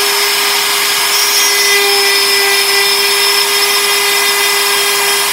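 Compact trim router on an MPCNC CNC machine, running at speed while its bit mills a 3D pocket in hardwood. It makes a steady motor whine with one strong held tone over a constant hiss of cutting.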